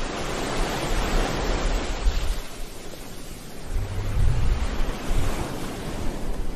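Ocean surf breaking and washing up a beach, swelling about a second in and again around four seconds in, with a low rumble underneath.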